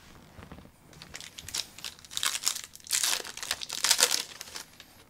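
Plastic wrapper of a 2010 Topps Platinum football card pack crinkling and tearing as the pack is opened, in several loud crackling spells.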